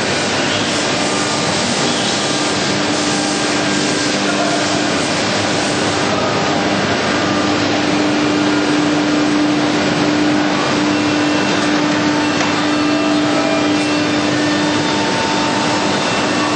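Edge-sanding line running: steady machine noise from the sanding units and dust extraction, with a steady low hum throughout.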